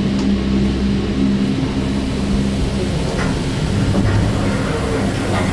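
Gondola lift machinery heard from inside the cabin as it moves through a station: a steady low mechanical hum whose droning tone eases after about two seconds, with a few faint knocks later on.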